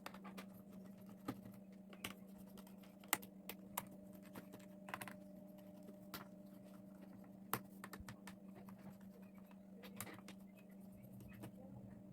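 Faint, irregular clicks and taps of hands and a small screwdriver working on a Lenovo ThinkPad X270's bottom case to open it, over a steady low hum.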